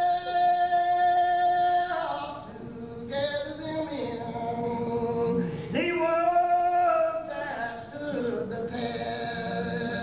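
Unaccompanied congregational hymn singing of men and women in the slow Old Regular Baptist style, with long drawn-out notes that slide from one pitch to the next.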